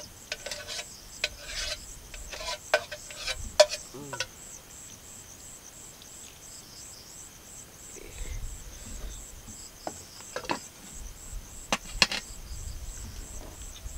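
Clinks and scrapes of a spoon against a metal cooking pot and plate as noodles are served, in a cluster over the first few seconds and a few more near the end, with a sharper knock as the pot is set down on wood. Behind it, insects chirp steadily in even, high-pitched pulses.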